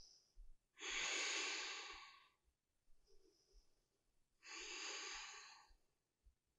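A woman breathing audibly while holding a yoga pose: two long, slow breaths, one about a second in and another about four and a half seconds in.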